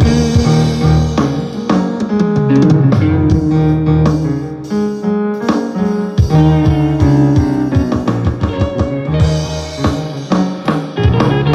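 Rock music played by a band: drum kit and guitar, with a falling run of notes about two seconds in.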